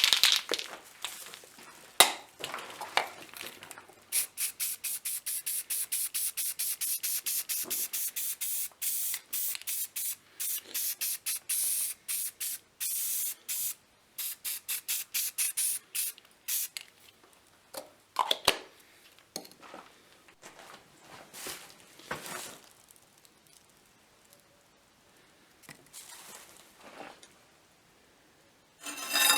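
Aerosol spray can hissing in a quick run of many short bursts for about thirteen seconds, with a few scattered knocks and clicks before and after.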